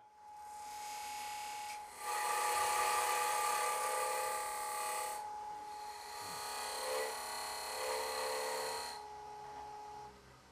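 Wood lathe running with a steady whine while a Robert Sorby Turnmaster cutter scrapes into the end grain of a spinning box blank, forming a recess: a quieter stretch at first, then two long cutting passes from about 2 s to 5 s and from 6 s to 9 s. The whine stops about ten seconds in as the lathe is switched off.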